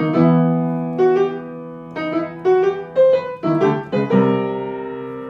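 Piano music: notes and chords struck every half second to a second, each left to ring and fade.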